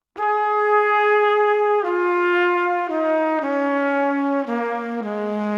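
Background music: a single melody instrument playing long held notes that step downward in pitch, coming in a moment after silence.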